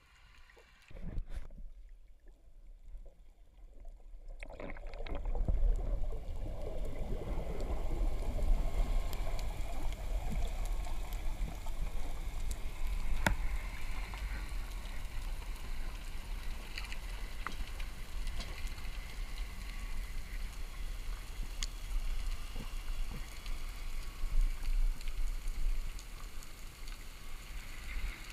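Underwater noise heard through a camera housing: a steady low rumble with a haze of moving-water sound, starting about four seconds in after a near-silent stretch and a single thump. Scattered faint clicks run through it, with one sharper click about halfway.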